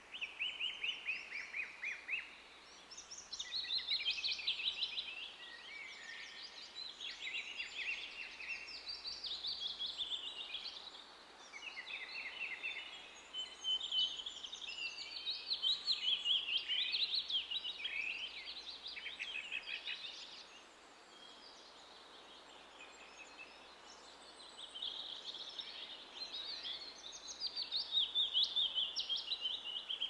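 Songbirds singing, many overlapping chirps and rapid trills in waves, dropping to a lull for a few seconds past the middle before picking up again.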